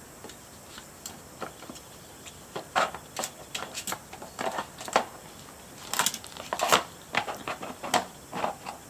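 Plastic compartments of a Trixie Poker Box 2 dog puzzle clicking and knocking as a Chihuahua noses and paws at them. An irregular clatter, sparse at first, getting much busier about three seconds in.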